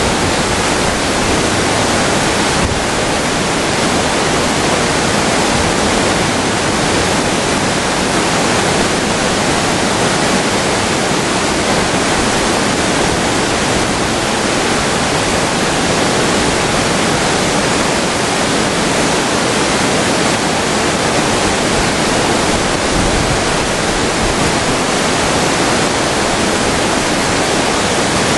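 Whitewater rapids of a mountain river rushing over boulders: a loud, steady, unbroken rush of water.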